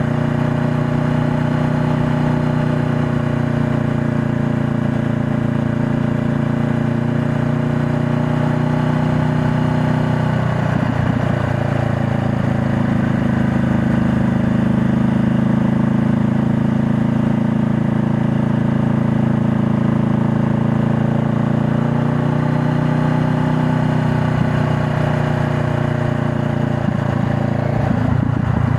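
2020 Honda Rebel 500's 471 cc parallel-twin engine running steadily under way, with a brief break in the engine note about a third of the way in and another near the end before it settles back.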